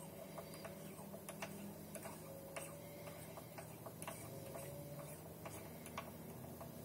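Small stepper motors of a filament spool winder running with a low hum and irregular light ticks while their speed is turned up from about a quarter to full.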